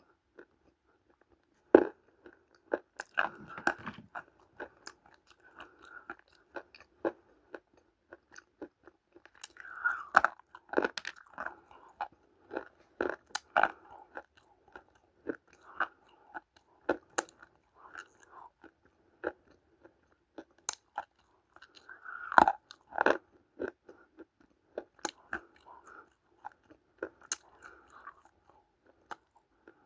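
A person biting into and chewing multani mitti (Fuller's earth clay), with sharp crunching snaps between stretches of chewing. The loudest bites come about two seconds in, around ten seconds in and about twenty-two seconds in.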